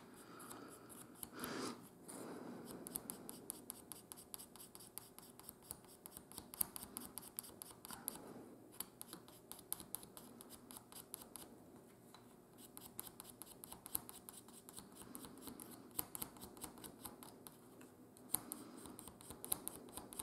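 Pencil lead scratching on a small wooden connecting rod in quick, short strokes, rubbing on graphite as a dry lubricant where the part will turn on its pin.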